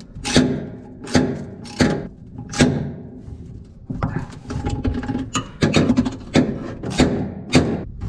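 Ratcheting combination spanner clicking on its back-strokes as it tightens a nut onto a bolt on a grain dryer's paddle conveyor, about one stroke a second, with each click ringing briefly in the sheet-steel conveyor casing. The nut is being fitted to a bolt that had lost its nut.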